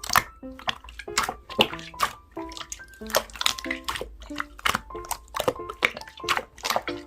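Slime being squished and pressed by hand, with sharp wet clicks and pops about two to three a second.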